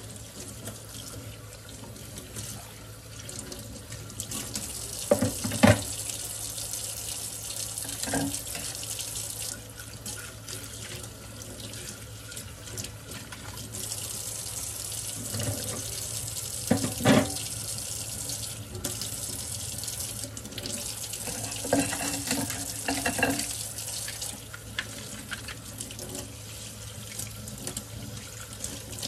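Kitchen faucet running steadily into a stainless steel sink as dishes are rinsed by hand. A few knocks of dishes being handled, the loudest about six and seventeen seconds in.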